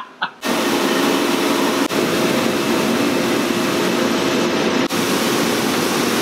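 Commercial conveyor dishwasher running: a loud, steady rush of spraying water over a low motor hum, starting abruptly about half a second in.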